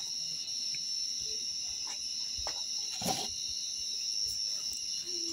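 Crickets chirping in a steady, high-pitched chorus, with a single sharp knock about three seconds in.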